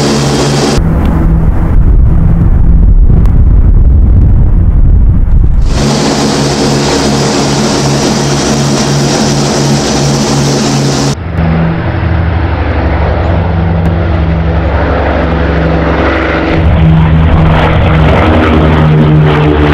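The four Wright R-3350 radial piston engines of a Boeing B-29 Superfortress running with a steady propeller drone. The sound changes abruptly several times as shots cut between the cockpit, the glazed nose and the bomber flying past.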